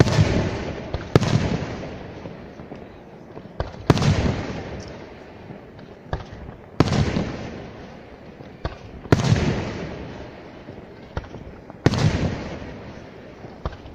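Aerial firework shells bursting in a display: six heavy bangs about every two to three seconds, each trailing off slowly, with a few lighter, sharper reports in between.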